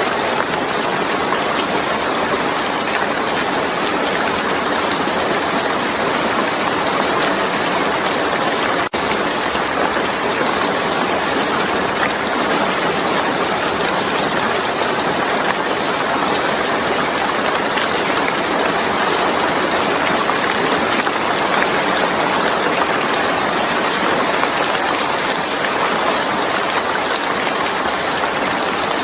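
Steady heavy rainfall, an even dense hiss of drops with no breaks except a momentary dropout about nine seconds in.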